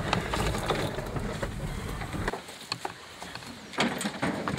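Vehicle driving slowly over a rough, overgrown trail, heard from inside the cab: a steady low rumble with scattered knocks and rattles. The rumble cuts off suddenly about halfway through, leaving quieter outdoor sounds with scattered clicks and one short louder noise near the end.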